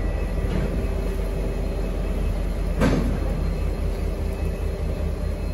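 Empty freight flat wagons rolling slowly over a level crossing: a steady low rumble, with a sharp wheel clank about three seconds in.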